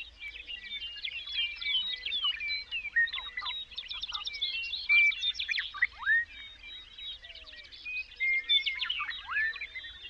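A chorus of several songbirds singing at once, a dense overlap of quick chirps and rapid trills, with upward-sliding whistles now and then.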